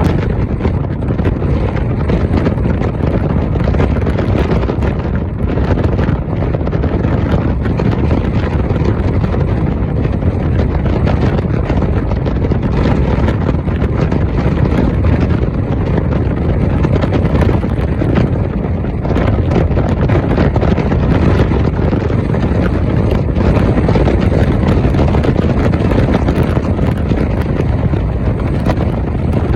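Heavy wind buffeting the microphone: a loud, steady rumble with no let-up.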